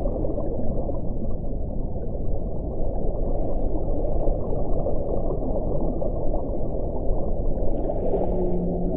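Underwater ocean ambience: a steady, dense low rumble with faint crackling above it. A low, drawn-out whale-like moan comes in near the end.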